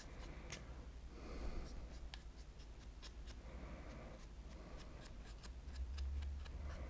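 Faint scratching of a paintbrush working paint over a small 3D-printed model, with a few small clicks as it is handled and a low rumble of handling near the end.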